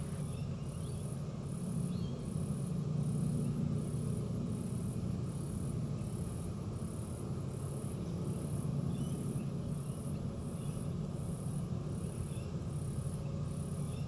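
Insect chirping outdoors in evenly spaced high-pitched pulses, a little over one a second, over a low, steady background rumble.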